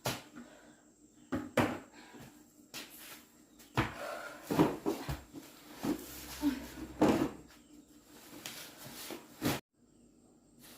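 Irregular knocks and clatters, several close together in the middle, stopping abruptly near the end.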